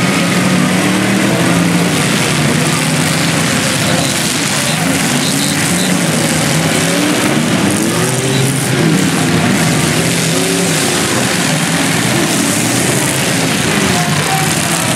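Demolition derby stock cars' engines running and revving together, their pitch rising and falling repeatedly over a dense, steady wash of noise.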